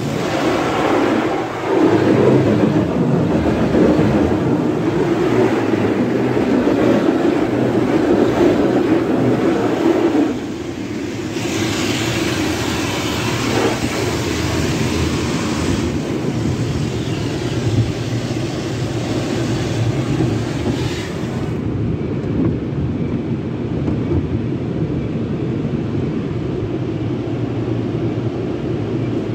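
A Sonny's tunnel car wash heard from inside the car: cloth brushes and water spray working over the body and windshield in a loud, dense wash of noise. About ten seconds in it turns brighter and hissier, and a little after twenty seconds it dulls to a steadier rumble.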